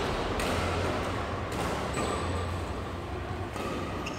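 Steady background noise of a large sports hall, an even hiss over a low hum, with a couple of faint knocks near the end as a badminton rally starts.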